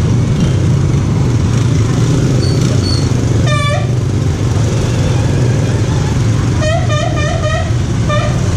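Steady low rumble of motorcycles riding in a group, with wind on the microphone. A horn gives one short wavering toot about three and a half seconds in, and a quick run of four rhythmic horn toots comes around seven seconds, with one more just before the end.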